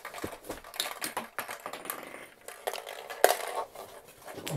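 Hard plastic Cookie Monster counting toy being handled and tipped over to switch it back on, with a quick irregular run of small plastic clicks and knocks.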